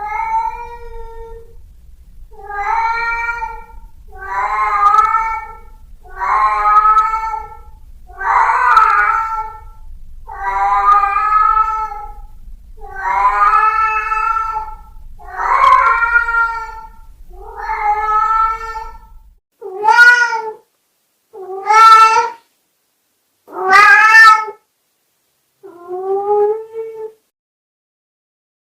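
Domestic cat giving a long series of sad, drawn-out meows, about thirteen in all, one every two seconds or so. A low steady hum sits under the earlier ones; the last four are shorter and separated by silence.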